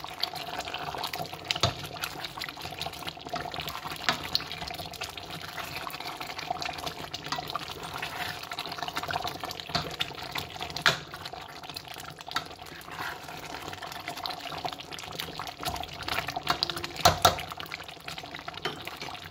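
Thick chicken curry bubbling and being stirred in a stainless steel pot with a plastic spoon, a steady wet crackle with occasional sharp clicks and knocks of the spoon on the pot, the loudest near the end.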